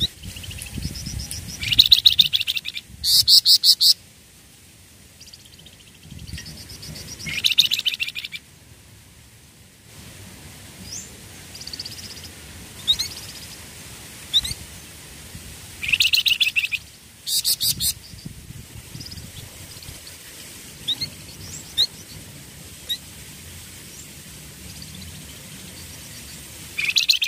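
Flamboyan cage songbirds singing: several bursts of fast, rapidly repeated trilling song lasting a second or two each, with short single chirps in between.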